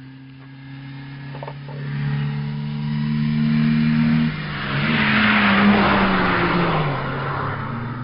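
Car engine running hard at speed as the car races along; about five seconds in a loud rushing swell of road and tyre noise rises and fades while the engine pitch glides up and then drops.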